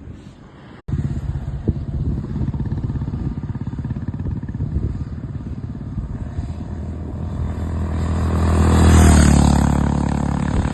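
Honda CB350 H'ness's single-cylinder engine thumping at highway speed. It cuts in suddenly about a second in, then grows louder to a peak near nine seconds and eases off slightly.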